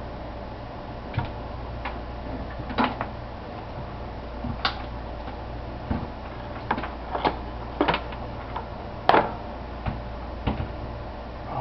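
Irregular light clicks and knocks of things being handled, about fifteen spread over the stretch, the loudest about nine seconds in, over a steady low hum.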